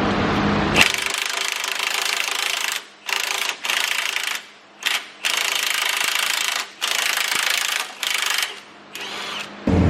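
Impact wrench run in about eight short bursts of uneven length with brief pauses between them, working a nut loose.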